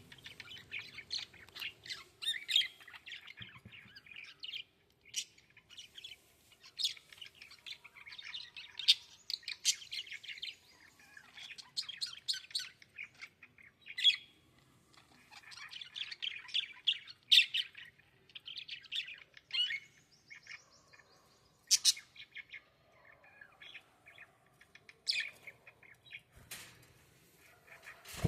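Several small birds chirping and chattering in quick, overlapping bursts, with the odd sharper, louder call.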